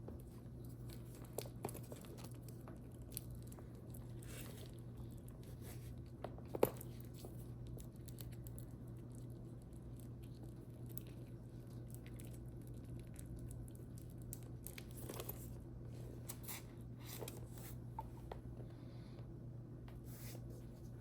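A leather shoulder bag and its packaging being handled: scattered soft rustles and small clicks, with one sharper click about six and a half seconds in, over a steady low hum.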